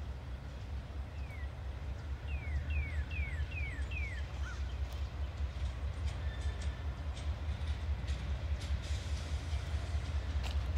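Distant GE CW40-9 diesel locomotive working cars in a rail yard: a low, steady engine rumble that swells slightly. A bird gives a run of about five quick falling whistles early on, and a few sharp clicks come later.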